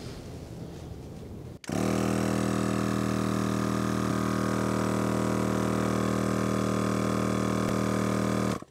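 T-Max 12 V portable air compressor switched on about two seconds in and running with a steady, unchanging hum, inflating a van tyre from about 3 bar. It stops abruptly near the end.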